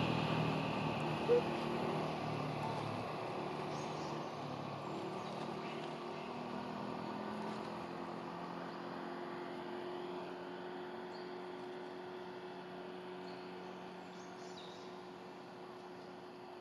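A motor vehicle's engine running with a steady hum that slowly fades away, with a short knock about a second in.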